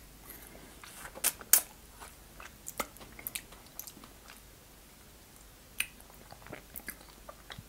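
Close-miked biting and chewing of a frozen fruit ice stick. Sharp bites come first, the loudest about a second and a half in, followed by scattered small chewing clicks and a quieter pause in the middle.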